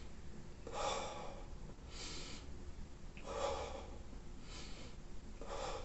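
A man breathing audibly in and out through the mouth, five soft breaths about a second apart: a demonstration of abdominal (diaphragmatic) breathing.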